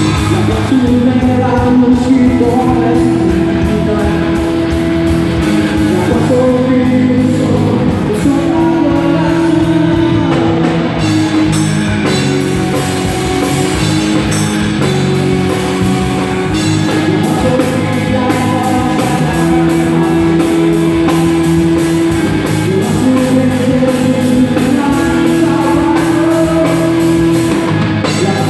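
Live rock band playing a worship song: electric guitars, bass, drums and keyboard with a sung lead vocal, holding long notes over a steady beat.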